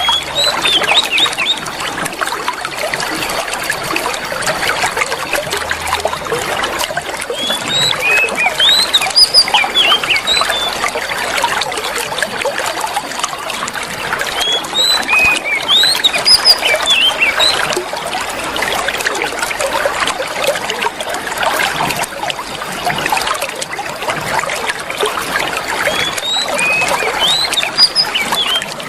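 Water trickling steadily, with short clusters of whistled songbird notes that come back about every seven seconds, the kind of looped water-and-birdsong track played to coax a caged bird into singing.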